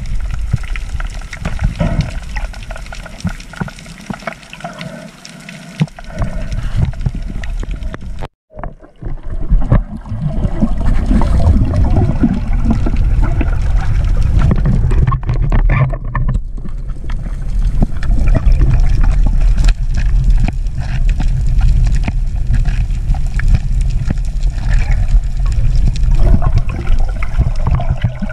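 Muffled rush and slosh of seawater picked up by a camera held underwater, loudest in the low end. It goes quieter for a few seconds, cuts out for a moment about eight seconds in, then comes back louder.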